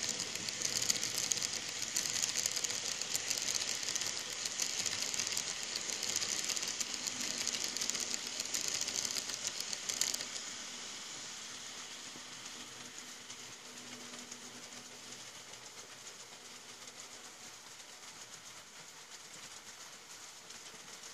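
N scale model passenger train rolling past, its wheels giving a fast, steady clicking rattle on the track over a faint motor hum. About halfway through the sound drops suddenly, then carries on quieter and slowly fades.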